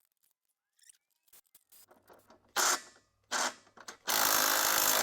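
A power tool run in two short bursts and then a longer one of about a second, after a few light clicks of handling.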